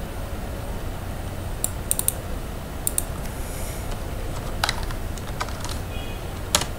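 Computer mouse clicks, then keystrokes on a computer keyboard typing a short file name, over a steady low hum. A few sharp clicks fall in the first three seconds; a quick run of keystrokes follows in the second half.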